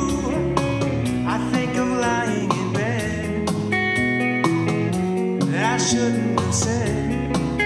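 Live band playing an instrumental passage: electric guitar lead with bending notes over electric bass and a steady beat.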